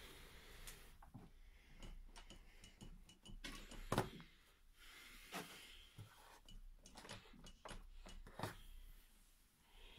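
Faint, scattered clicks and taps from a hand working at a car tailgate's chrome handle strip, with the loudest click about four seconds in.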